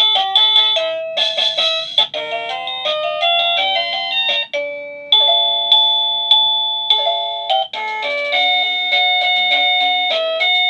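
Papayay wireless doorbell receiver playing its electronic chime tunes: runs of clear, bell-like beeping notes, each dying away, switching to a different melody several times.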